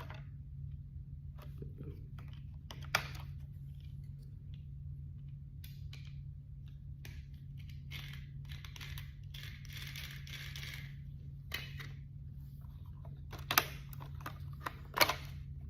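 Handling noises while lubricating a small engine: a few sharp clicks and a rustling hiss of about three seconds near the middle, over a steady low hum.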